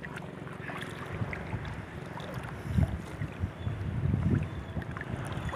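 Shallow seawater sloshing around people wading with a fishing net, with wind rumbling on the microphone in gusts that swell about three seconds in and again around four seconds.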